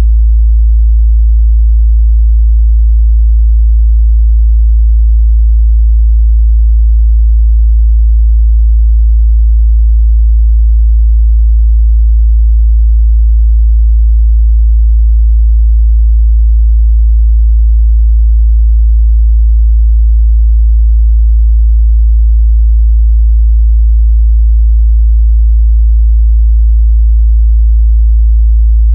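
Steady 55 Hz sine-wave test tone: one continuous low bass hum at constant pitch and a constant, very loud level.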